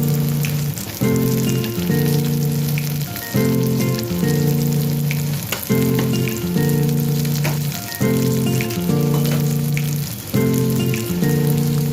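Food frying and sizzling in hot oil, a steady crackling hiss, under background music that repeats a short phrase of held notes about every two seconds.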